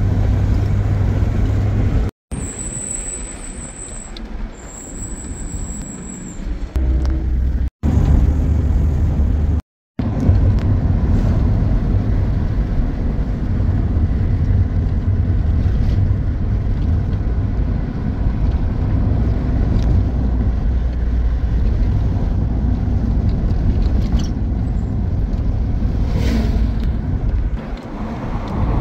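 A car being driven, its engine and road noise making a steady low rumble. A thin high whistle runs for a few seconds near the start, and the sound cuts out abruptly three times in the first ten seconds.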